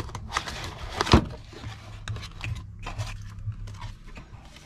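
Small cardboard box being opened by hand: flaps and card scraping and rustling, with irregular taps and clicks, the sharpest one about a second in.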